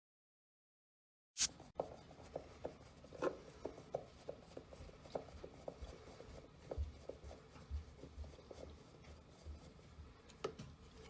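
Dead silence for over a second, then a sharp click followed by a run of light irregular clicks, taps and scratching from hands handling small objects at close range in a small room.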